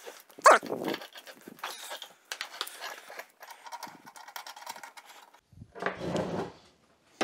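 Handling noise from a braided PVC gas hose and its brass fittings: light clicks, knocks and rustles, with a short sharp sound about half a second in and a denser rustle near the end, as the hose is fitted to the welder's gas inlet.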